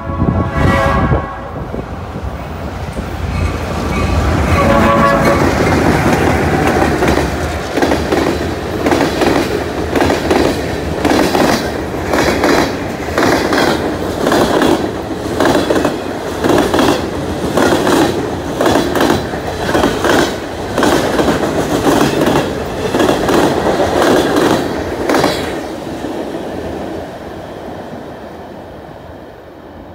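New York & Atlantic freight train passing: a diesel locomotive horn sounds briefly at the start, then the locomotives and freight cars roll by with a regular clickety-clack of wheels over rail joints about once a second, fading near the end as the train moves away.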